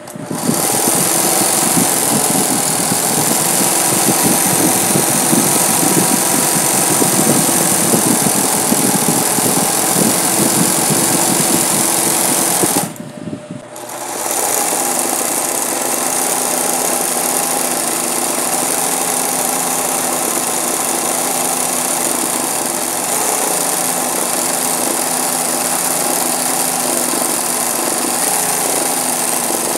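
Singer 20U industrial zig-zag sewing machine running fast and steady, stitching satin-stitch embroidery. It stops for about a second near the middle, then starts again.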